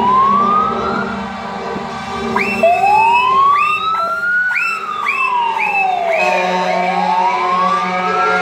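Sirens sounding from trucks in a passing convoy: slow wails rising and falling in pitch, overlapped a few seconds in by a string of short rising yelps, about two a second. Truck engines run underneath.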